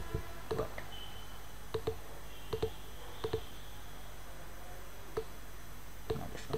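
Computer mouse buttons clicking about a dozen times, many in quick pairs of press and release, as a shape is selected and resized, over a steady low background hum.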